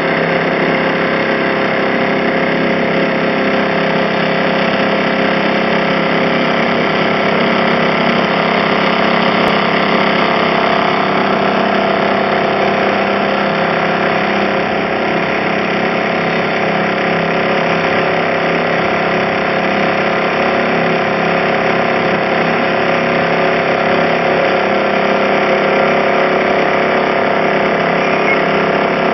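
Boat engine running at a steady speed, an unchanging drone, heard from aboard as the boat cruises.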